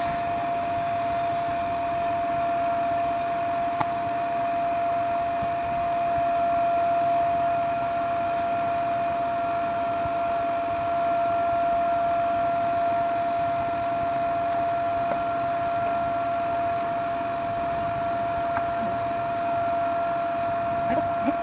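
A machine running steadily: a constant droning hum with a high whine held at one pitch, a second, higher whine joining about six seconds in, and a few faint clicks.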